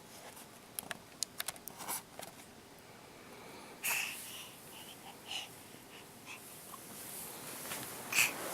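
A baby's short breathy noises, a few over several seconds, the loudest about four seconds in, with a few faint clicks in the first two seconds.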